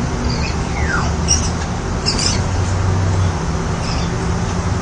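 A bird giving a short falling note and a couple of brief high chirps, over a steady low hum.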